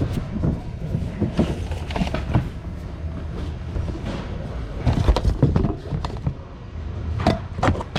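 Items being rummaged through in a thrift-store bin: irregular knocks and clatter, with a cluster of them about five seconds in and a few sharper strikes near the end, over a steady low background rumble.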